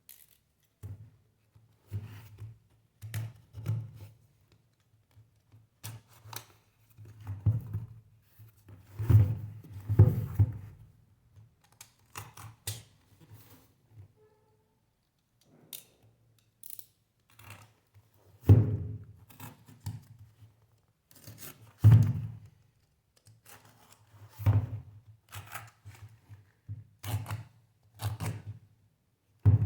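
Packaging being opened and handled by hand: irregular clicks, cutting and tearing sounds and knocks, with several louder thuds.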